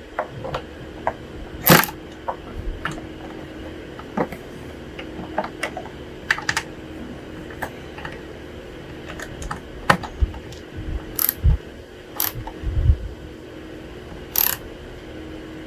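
Irregular metallic clicks and clinks of a socket wrench on bolts as they are run down snug, a click every second or so with a few quick clusters, over a faint steady hum.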